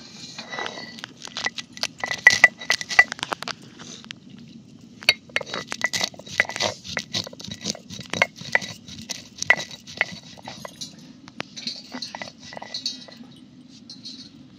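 Stone roller crushing and rolling dry-roasted whole spices on a grooved stone grinding slab (pata-varvanta): a quick, irregular run of knocks and crunches, stone on stone, with bright clinks of glass bangles on the grinder's wrists, and a short pause about four seconds in.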